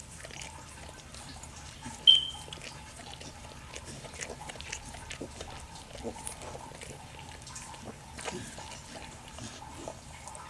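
Pit bull mother licking and chewing at a newborn puppy and its umbilical cord, a run of small wet licking and smacking clicks. One short, high squeak about two seconds in is the loudest sound.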